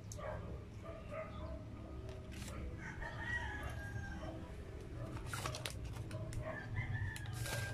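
Close-up chewing and crunching of McDonald's French fries, with sharp crackly clicks. Twice in the background, an animal's drawn-out call, each about a second long and falling slightly in pitch, over a steady low hum.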